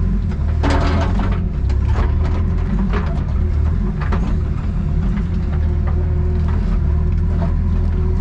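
Excavator's diesel engine running steadily, with scattered clanks and clicks and a brief hiss about a second in.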